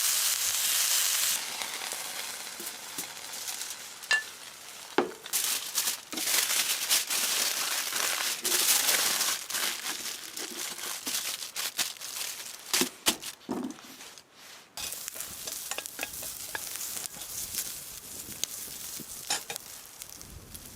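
Steady sizzling with scattered sharp crackles and clicks, loudest in the first second and a half and then settling lower.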